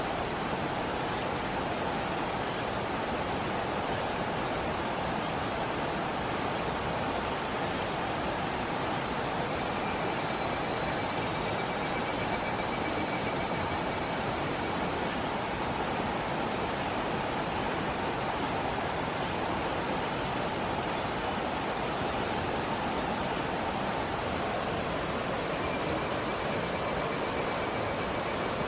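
Steady outdoor ambience: a high, continuous insect drone that grows louder about twelve seconds in, over an even low rushing background noise.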